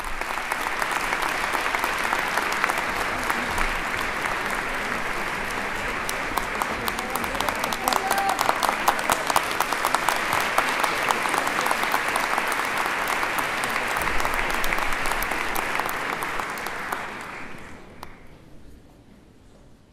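Audience applauding, a dense clatter of many hands clapping that dies away about seventeen seconds in.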